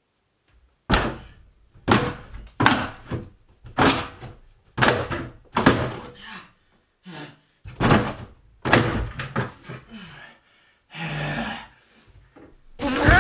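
An interior door being smashed through from the other side: about ten heavy knocks roughly a second apart as the door skin cracks and gives way, then a longer rough scraping noise near the end.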